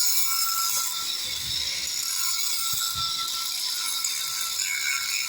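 Electric arc welding: a steady, dense crackling sizzle of the arc.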